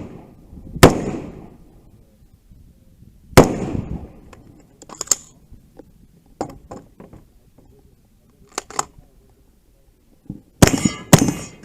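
Gunshots at a shooting match: single shots about a second in and at about three and a half seconds, then two quick shots near the end, each ringing out briefly. Fainter sharp cracks fall between them.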